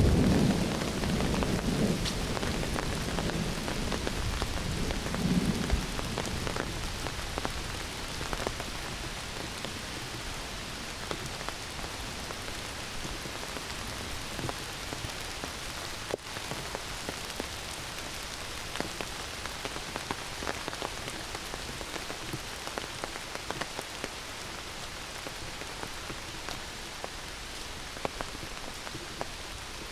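Heavy summer rain falling steadily in a forest, with many individual drops striking close by. A rumble of thunder dies away over the first few seconds.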